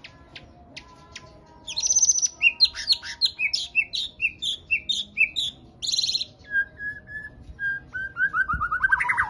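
White-rumped shama (murai batu) singing. After a quiet second and a half, it gives a fast run of varied high chirping notes for about four seconds. Then comes a string of lower whistled notes that quicken and drop in pitch toward the end.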